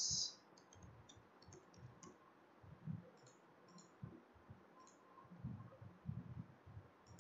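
Faint computer keyboard typing and mouse clicks: a scatter of light, short clicks.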